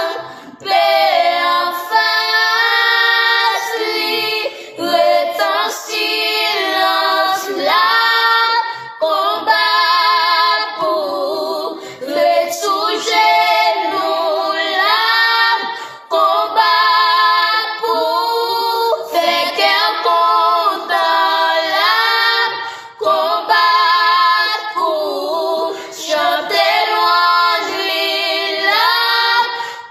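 Three young girls singing a Haitian Creole hymn together, unaccompanied, in sustained phrases with vibrato.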